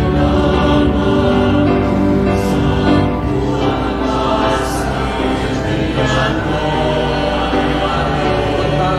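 Church choir singing a hymn in long, held notes.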